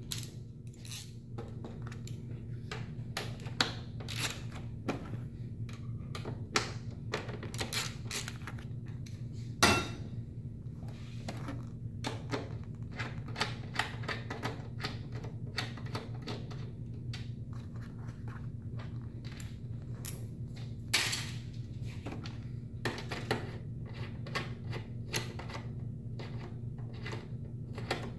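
Metal clicks and taps of a 5 mm Allen key turning out the front seat bolts on a Honda CBR1000RR, irregular and frequent, with one sharper knock about ten seconds in, over a steady low hum.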